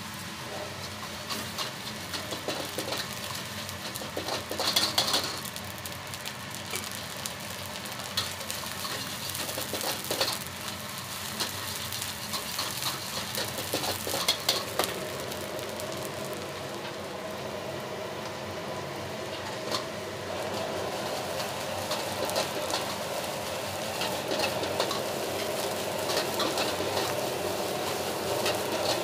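Egg, shrimp and rice stir-frying in a wok: steady sizzling, with a metal ladle repeatedly scraping and clanking against the wok, loudest about 5 and 14 seconds in.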